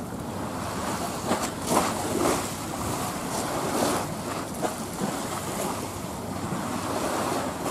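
Wind buffeting the microphone over the rush of waves on choppy sea, in irregular gusts that are loudest between about one and four seconds in.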